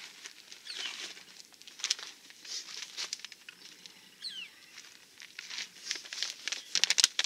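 Crinkling of a plastic snack pouch as peanuts are shaken out into a hand: scattered crackles and rustles, loudest in a quick run of crackles near the end.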